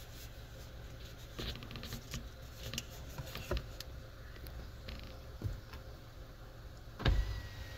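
Scattered light clicks and taps over a low steady rumble, with a louder thump about seven seconds in. These are small handling sounds inside a car cabin.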